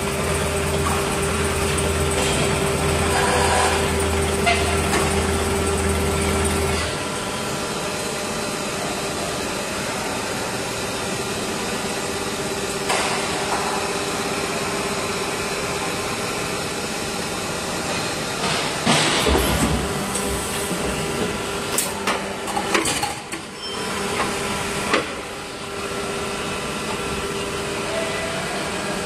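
Hydraulic injection moulding machine running a six-cavity PET preform mould. A steady low hum from the hydraulic pump under load drops away about seven seconds in. Later comes a run of sharp knocks and hisses as the machine moves.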